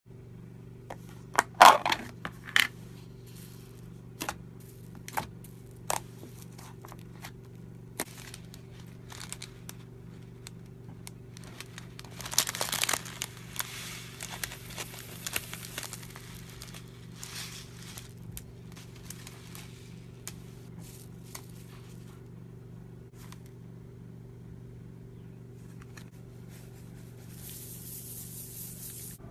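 Slime being played with by hand: scattered sharp clicks and crackles, with a denser crinkling stretch about twelve seconds in, over a steady low hum.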